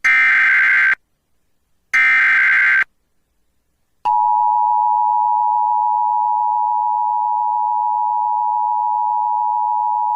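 Emergency Alert System tones for a tornado warning: two bursts of SAME digital header data, each about a second long and a second apart. About four seconds in, the steady two-tone EAS attention signal starts and holds; it announces the emergency message that follows.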